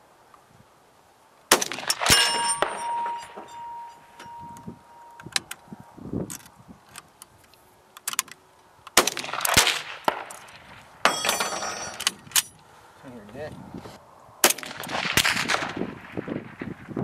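Several rifle shots spaced seconds apart, with a steel target plate ringing for a couple of seconds after the shot about two seconds in.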